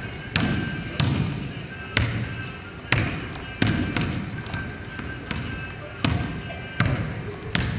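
Basketball dribbled on a hardwood gym floor, sharp bounces coming about once a second at an uneven pace, heard over background music.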